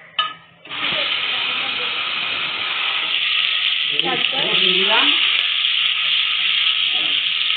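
Chopped garlic sizzling loudly in hot oil with dried red chillies in an aluminium kadai, the sizzle starting suddenly about a second in as it hits the oil, then stirred with a metal spatula.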